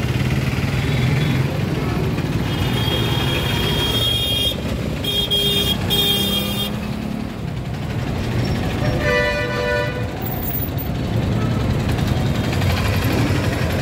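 Busy city street traffic with engines running, and vehicle horns honking: a high-pitched horn toots three times in the first half, then a lower, fuller horn sounds for about a second around nine seconds in.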